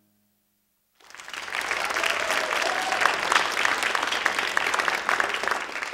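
Audience applauding at the end of a dance performance, starting about a second in after a moment of silence and building quickly to full applause.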